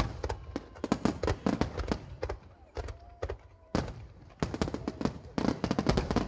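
A fireworks finale barrage: many shells bursting in rapid, overlapping bangs and crackles. There is a short lull about two and a half seconds in, then a heavy bang and an even denser run of bursts toward the end.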